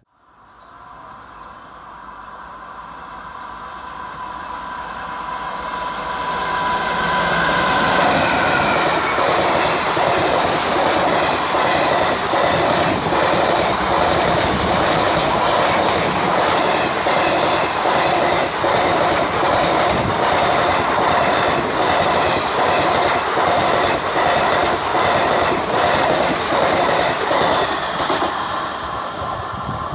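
Express train hauled by a WAP-4 electric locomotive, with ICF coaches, approaching and passing at speed. The sound builds over the first eight seconds, with a steady high tone, then the coaches' wheels clatter over the rail joints in a fast, regular clickety-clack. It eases slightly as the last coach goes by near the end.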